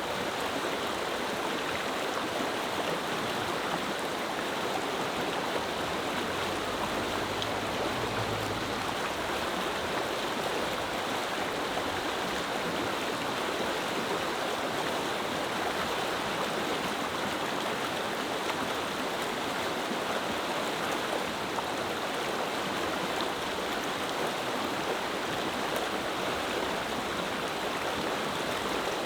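Clear mountain river running over stones: a steady rushing murmur that does not change.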